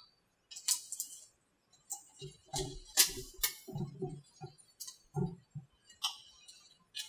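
Fiberglass male mold being worked free of a black female fuselage mold by hand, giving a scatter of sharp clicks and cracks as the parts separate. Dull knocks come in the middle as the mold is pressed and shifted on the bench.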